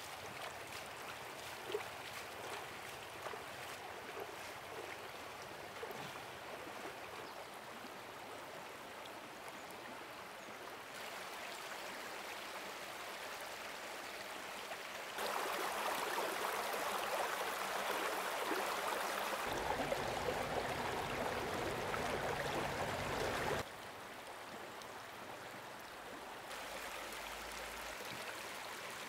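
Stream water running and rushing steadily, its loudness jumping abruptly several times and loudest through the middle stretch, with a single sharp knock about two seconds in.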